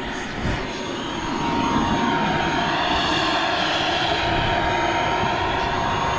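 Model jet turbine engines whining, with a steady high tone and jet rush that swells about two seconds in and then holds.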